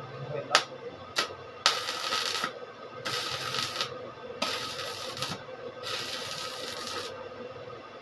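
Stick (arc) welder tack-welding a steel pipe: two sharp clicks as the electrode is struck, then four bursts of arc crackle, each about a second long with short gaps between them.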